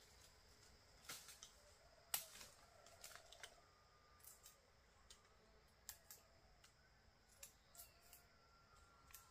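Faint, irregular sharp clicks and snaps, about two a second, the loudest about two seconds in, over a faint thin tone that comes and goes.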